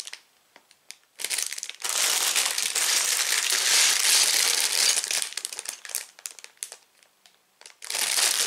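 Sealed plastic Lego parts bags crinkling as they are handled, starting about a second in, thinning out past the middle, and starting again near the end.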